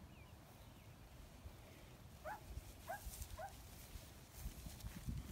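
Red Devon cattle grazing close by, tearing and chewing grass in faint clicks and thumps. A little past two seconds in, an animal gives three short rising calls about half a second apart.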